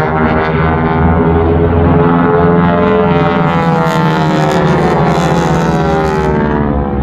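North American T-6 Texan's nine-cylinder radial engine and propeller droning loudly through an aerobatic dive, the pitch falling over the last few seconds as the aircraft passes.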